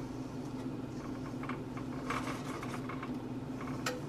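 A wire whisk stirring thick almond-flour cookie dough in a stainless steel bowl: faint scrapes and light ticks, with a sharper click near the end, over a steady low hum.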